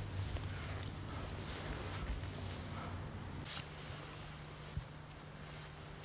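Steady high-pitched insect chorus, with a faint low background hum and one soft tick about three and a half seconds in.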